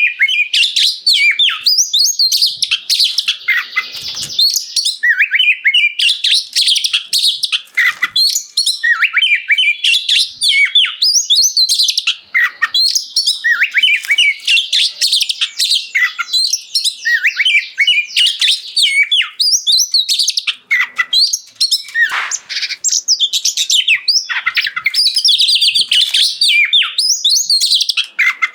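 Oriental magpie-robin (kacer) singing loudly and without let-up: a rapid stream of varied, quickly rising and falling notes with barely a break between phrases.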